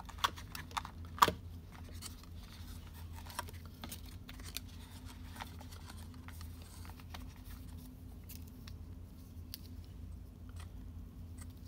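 Handling of a paper leaflet and a cardboard box: a few crisp clicks and rustles in the first second or so, then faint scattered taps and rustles as a charging cable is lifted out of the box, over a steady low hum.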